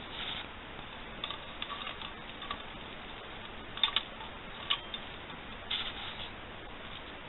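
Scattered light clicks and short rustles from a hand handling hanging Christmas ornaments among the tree's branches, with the loudest two clicks close together about four seconds in.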